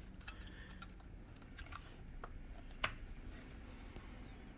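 Faint small clicks and taps of a DDR3L laptop RAM module being handled and pushed into its slot, with one sharper click a little under three seconds in as it seats.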